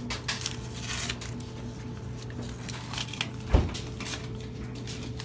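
Small clicks, knocks and rustles of parts being handled during BMX assembly, with one heavy low thud about three and a half seconds in, over a steady low electrical hum.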